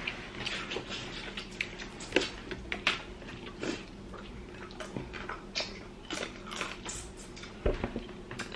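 Irregular clicks and crackles of boiled head-on shrimp shells being peeled by hand, with eating sounds close to the microphone and a single louder knock near the end.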